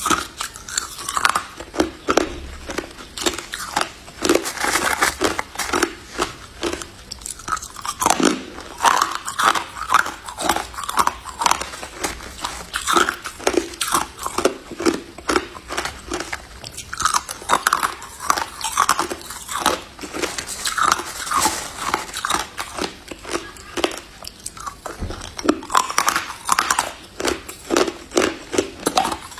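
A person biting and chewing crushed white ice, a close, continuous run of sharp icy crunches several times a second.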